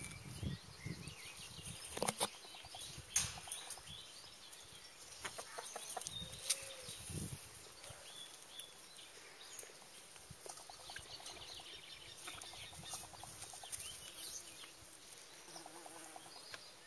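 Backyard hens clucking faintly, with rustling, flapping and a few sharp knocks or taps, the loudest about two and three seconds in.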